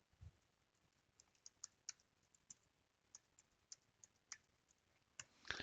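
Faint typing on a computer keyboard: an uneven run of light key clicks as a password is entered. A brief, louder rush of noise comes near the end.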